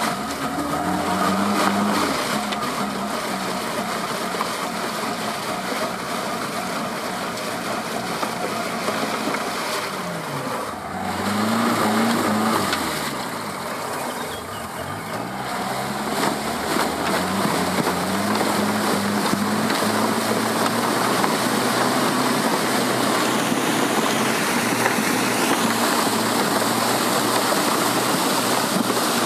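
Off-road 4x4's engine running under load, its pitch rising and falling repeatedly as the throttle changes, under a constant rush of tyre and terrain noise.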